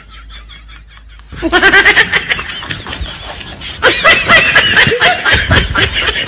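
Laughter: a run of quick, high-pitched chuckles begins about a second and a half in and grows louder from about four seconds.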